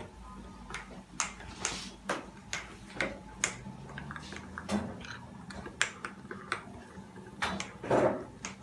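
Irregular clinks and taps of a kitchen utensil against cookware, a little over one a second, with a louder cluster near the end.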